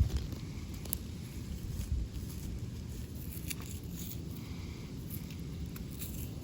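Footsteps and small stones clicking and knocking on loose rocky ground over a steady low rumble of handling noise, with one sharper knock at the start and another about two seconds in.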